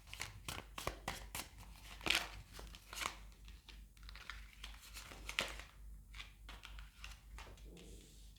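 Tarot cards being shuffled and handled: a run of quick papery flicks and snaps, thick in the first three seconds or so and thinning out after that.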